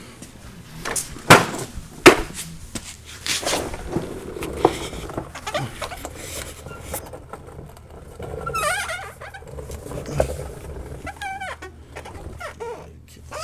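Knocks and clatter of handling as someone gets down under a pickup on a mechanic's creeper, with two sharp knocks about a second in. Later a dog whimpers several times, high and wavering.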